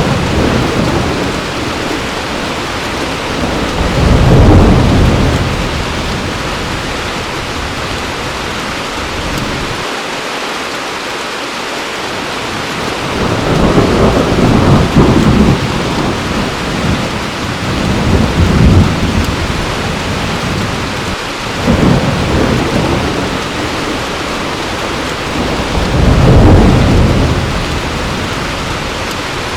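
Heavy rain falling steadily, with thunder rumbling in low rolls about five times, the loudest about four seconds in and near the end.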